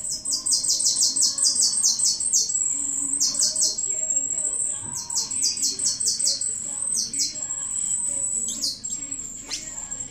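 Rapid high-pitched chirps from a small animal, each falling in pitch, in quick runs of several a second, over a thin steady high tone; a few longer, deeper-falling chirps come near the end.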